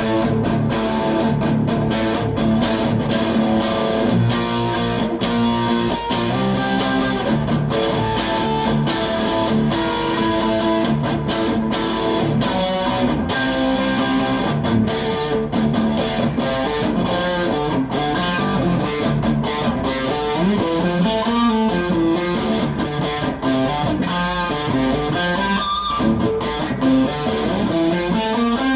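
PRS SE DGT electric guitar being played for a tone test, continuous strummed chords and picked notes with sharp pick attacks.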